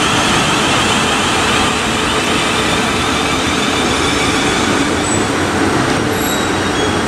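South Western Railway Class 450 electric multiple unit passing at speed: a loud, steady rush of wheels on rail.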